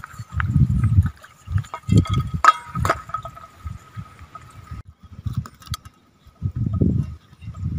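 Water and mud dripping and splashing into a pan as a wet woven fish-scoop basket is shaken and tapped out over it, broken by several short low rumbles and a couple of sharp clicks.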